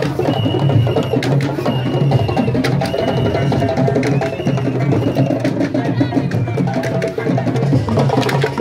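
Griot percussion troupe drumming: dense, sharp hand-drum strokes in a fast rhythm, with a high held tone sounding about once a second over it.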